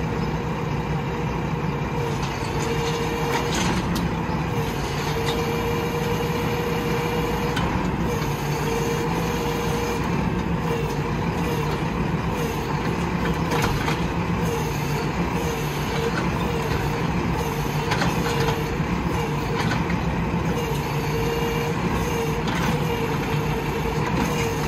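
Roll-off truck's diesel engine running steadily, with a slightly wavering whine and occasional short clanks. Near the end the truck's tarp arm is drawing the mesh tarp over the loaded bin.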